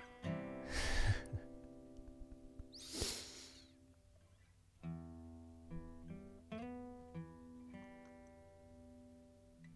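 Acoustic guitar background music, with two short hissing swishes about one and three seconds in.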